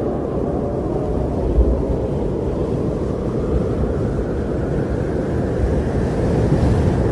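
Strong blizzard wind blowing steadily, a deep, low rush that swells slightly toward the end.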